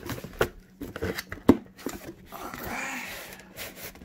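Cardboard box and packaging insert of a gaming headset being handled: a series of knocks and taps, the sharpest about a second and a half in, then a rustling slide lasting about a second as the headset is worked out of its box.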